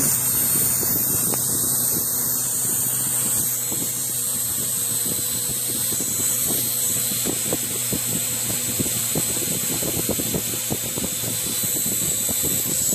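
Small quadcopter drone with round propeller guards hovering close by: the steady buzzing whine of its electric motors and spinning propellers.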